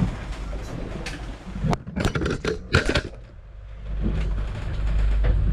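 Galley cookware and utensils clattering and knocking a few times about two seconds in as the yacht rolls, over a steady low hum. A low rushing noise swells near the end.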